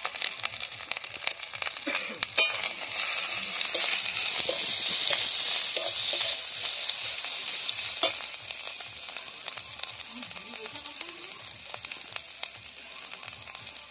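Onions with garlic, ginger paste and ground turmeric sizzling in hot oil in a metal kadai as a metal spatula stirs and scrapes against the pan, with a few sharp taps of the spatula on the metal. The sizzle swells from about three seconds in and eases off after about seven seconds.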